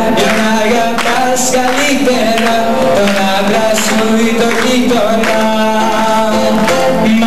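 Live Greek song: a male voice singing into a microphone over a plucked bouzouki and guitar.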